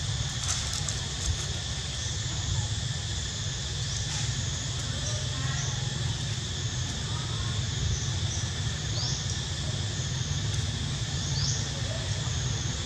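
Outdoor ambience: insects droning steadily at a high pitch over a low rumble, with two short rising chirps in the second half.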